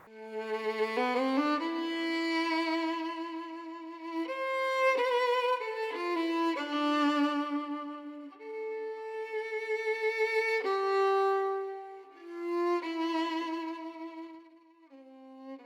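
Solo violin playing a slow, mournful melody of long held notes with vibrato.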